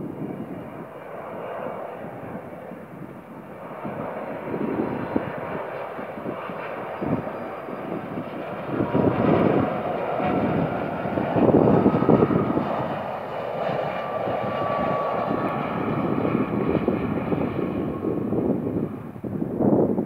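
Twin jet engines of a Boeing 757-200 freighter on final approach: a steady rushing jet noise that swells as the aircraft passes closest, loudest about halfway through, with a faint high whine on top.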